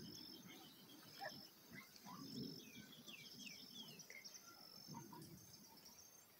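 Faint rural ambience: small birds chirping in short falling notes, with a thin high note repeating over and over.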